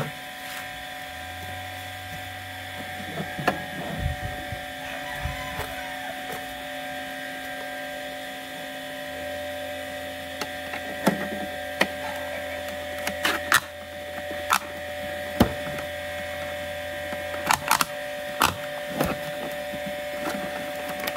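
Hard plastic car armrest parts being handled and turned over on a wooden table: scattered clicks and knocks of plastic on plastic and wood, over a steady background hum.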